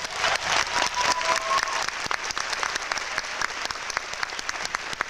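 Theatre audience applauding, a dense patter of many hands clapping, loudest at the start and easing off slightly, with a brief held cheer from the crowd about a second in.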